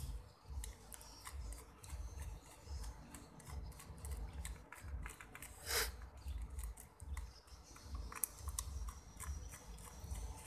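Screwdriver turning small screws out of the aluminium frame of an overhead fishing reel: faint, scattered clicks and scrapes of metal on metal, with one sharper click about six seconds in.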